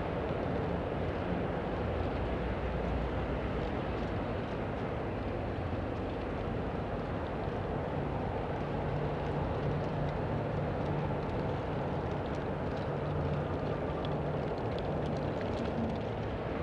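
Steady street traffic noise: an even rumble of cars on a nearby road, with a low engine hum rising and falling in the middle.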